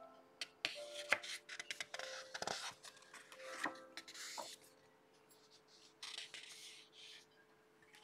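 Paper pages of a colouring book being turned by hand: crisp rustling and crackling, with one page turned over in the first few seconds and another around six seconds in. Soft background music plays underneath.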